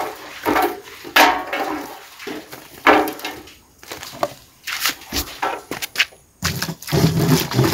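A plastic jerrycan drawn up a hand-dug well on a rope, with irregular knocks, clunks and scrapes as it is hauled up and bumps the shaft and the wooden well cover. About six and a half seconds in, water starts pouring out of it in a steady rush.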